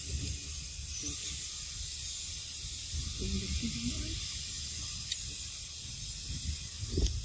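Outdoor ambience: a steady high hiss over an uneven low rumble like wind on the microphone, with a soft knock shortly before the end.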